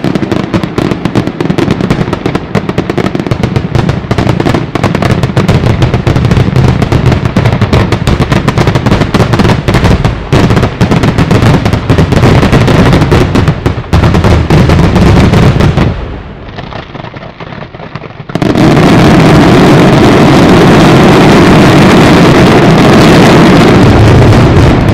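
A Sanseverese firework battery: chains of ground-laid firecrackers going off in a dense, very loud, rapid string of bangs. It eases off briefly about sixteen seconds in, then resumes as an unbroken barrage of massed detonations.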